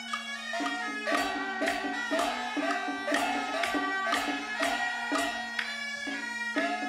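Live traditional Taiwanese glove-puppet theatre music: percussion struck in a steady beat of about two strokes a second, each stroke ringing with a bending pitch, over a held low note.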